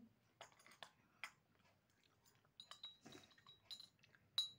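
Near silence broken by faint scattered clicks and taps of small objects being handled, with one sharper, briefly ringing clink near the end.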